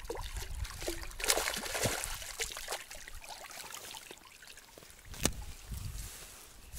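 Shallow water splashing and trickling at the edge of a creek, with a sharp click about five seconds in.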